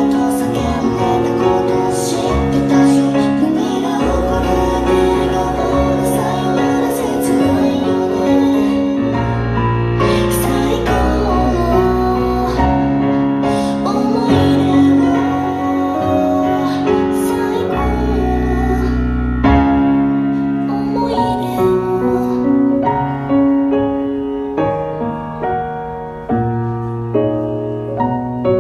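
Music: a pop-rock song led by piano chords over a steady bass line.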